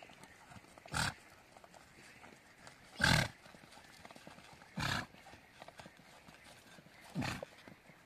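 Pack donkey making its way down a steep, dry, stony slope: four short noisy sounds about two seconds apart, the second the loudest.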